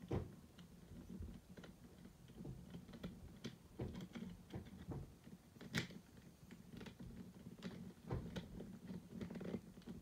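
Small plastic pieces of a disassembled 2x2 Rubik's cube clicking and tapping as wedge pieces are fitted into place by hand: faint, irregular light clicks, with one sharper click a little before six seconds in.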